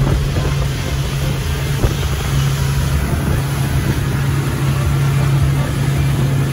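Motorboat engine running steadily, a constant low hum with no change in pitch, over rushing wind and water noise.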